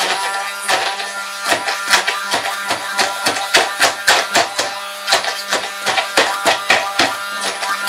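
Music with a fast, even beat of about four strokes a second, over the steady whir of a hand-held stick blender's motor puréeing pesto in a plastic jug.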